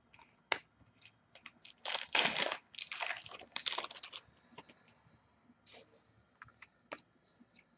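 Crinkling and rustling of a trading card pack wrapper, heaviest for about two seconds from roughly two seconds in, with scattered light clicks of cards being handled before and after.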